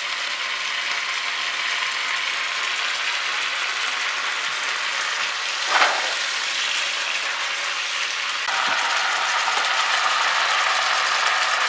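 Strips of beef sizzling in hot oil in a wok as they brown, a steady crackling hiss. A wooden spoon scrapes against the wok once about six seconds in, and the sizzle gets louder a couple of seconds later.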